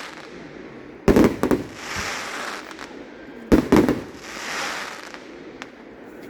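Aerial fireworks bursting: a cluster of loud bangs about a second in and another about halfway through, each followed by the crackle of the burst.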